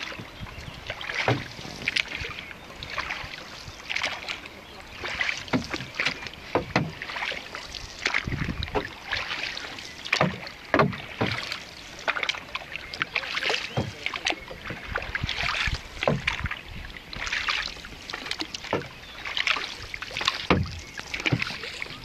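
Hand paddles dipping and pulling through calm lake water, splashing and dripping in repeated strokes, roughly one to two a second.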